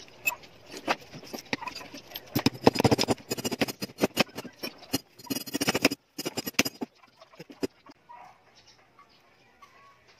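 Metal clinking and knocking of steel transmission gears, synchronizer parts and hand tools being handled and tapped together on a mainshaft, in quick clusters of sharp clicks. It goes much quieter about seven seconds in.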